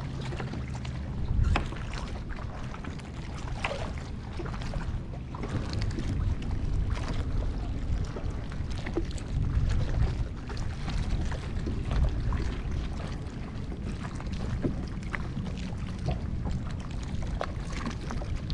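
Water lapping against a plastic kayak hull, with a low, uneven wind rumble on the microphone and a few light knocks.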